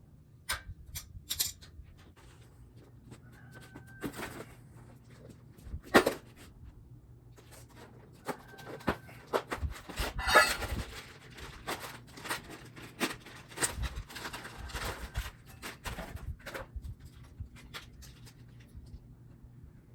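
Irregular clicks, taps and knocks of something being handled, with a sharper knock about six seconds in and a cluster of clatter around ten seconds, over a faint low steady hum.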